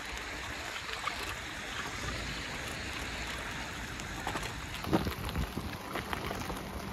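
Steady rushing hiss of a bicycle rolling along a wet path, tyre noise mixed with air moving past the microphone, with a few small knocks and rattles about five seconds in.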